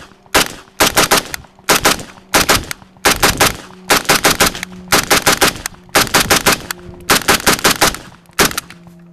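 Rifle gunfire: rapid strings of sharp shots, two to five in quick succession, repeated a dozen or so times without a break.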